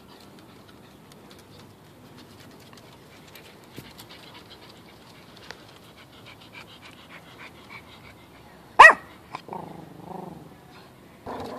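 A dog panting softly, with one sharp, loud bark about nine seconds in.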